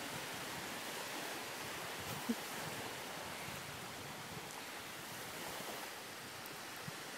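Small waves washing onto a sandy beach, a steady hiss of surf mixed with wind. One brief knock about two seconds in.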